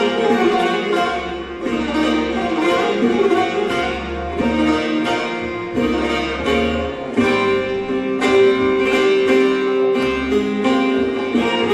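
Turkish folk music ensemble playing a zeybek tune: plucked string instruments over a steady drum beat, strokes falling about twice a second.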